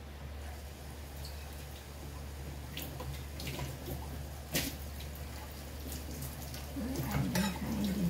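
Water dripping in a few scattered, irregular drops over a steady low hum.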